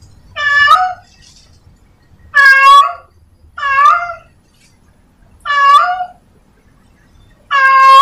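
Calico cat meowing repeatedly: five short, high-pitched meows, each under a second long, one to two seconds apart.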